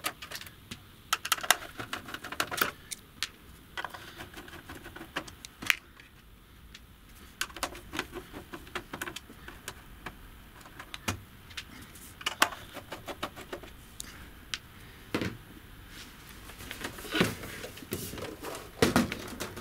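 Screws and a screwdriver clicking against the sheet-steel case of a Harman Kardon HS500 home theater unit as the back-panel screws are taken out: irregular sharp metallic clicks and small knocks. Louder knocks near the end as the unit is moved on the bench.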